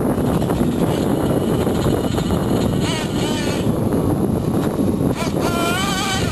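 Small nitro engine of a radio-controlled monster truck running and revving up and down in short bursts as the truck drives, over a steady rumble of tyres and ground noise. The engine's pitch rises and wavers about halfway through and again near the end.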